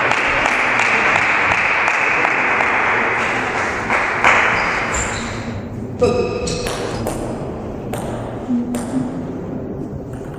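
Spectators applauding for about five seconds after a point, fading out. Then a table tennis ball bouncing, first one ringing ping about six seconds in, then several lighter clicks.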